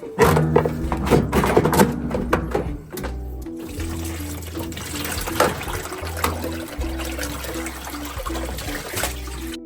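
Water gushing and splashing out of the opened drain-pump housing of a washing machine, heaviest in the first two or three seconds, over background music with a steady bass line.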